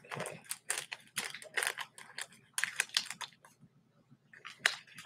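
A quick, irregular run of taps, clicks and rustles from hands handling things close to the microphone, with short pauses between clusters.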